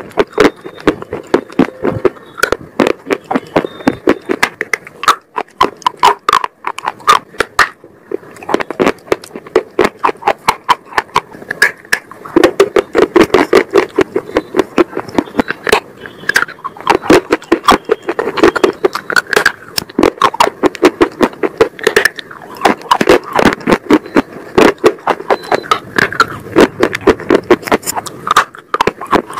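Close-miked biting and crunching of hard, brittle sticks: a rapid run of sharp cracks and crunches in clusters, with brief pauses between bites, picked up by a wired earphone microphone held right at the mouth.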